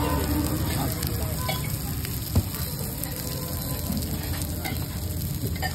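Eggs sizzling as they fry in small cast-iron bowls over a charcoal fire, a steady frying hiss. A single sharp knock sounds about two and a half seconds in.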